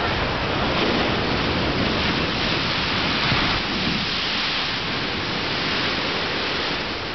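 Ocean surf on a sandy beach: a wave washing up over the sand, a steady rush of water and foam. It is loudest about two to three seconds in and eases a little after.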